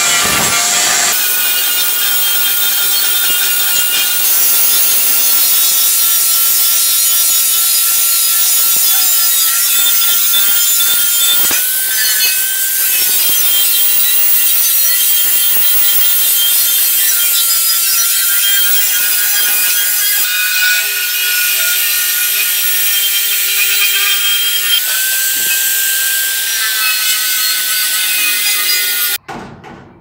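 Electric angle grinder with an abrasive disc pressed against the hoe's metal blade, grinding the rust off. It runs as a steady, high grinding whine whose pitch wavers slightly with the pressure, then cuts off suddenly near the end.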